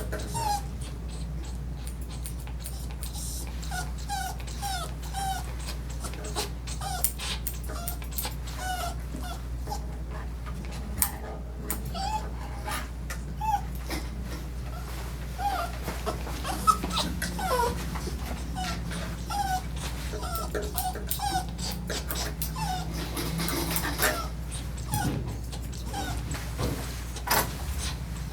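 A dog whimpering in short, high whines, repeated every second or so, a sign of the dog's high anxiety while being groomed. Scattered clicks and a steady low hum lie underneath.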